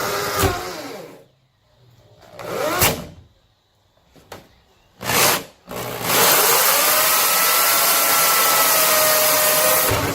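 Electric drill with a 1-3/8-inch hole saw cutting into a fiberglass car hood. It runs in three short bursts that rise and fall in pitch, then cuts steadily for about four seconds before stopping suddenly near the end.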